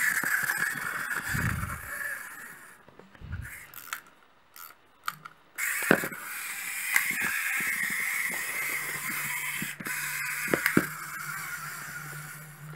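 Clockwork motor of a small plastic wind-up toy whirring as the toy spins and flips on a tabletop; it runs down and stops after about three seconds. After a short pause with a few clicks it starts again about six seconds in and runs until near the end, with knocks as it flips.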